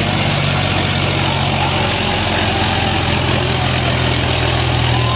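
Tractor diesel engine running steadily at a constant speed.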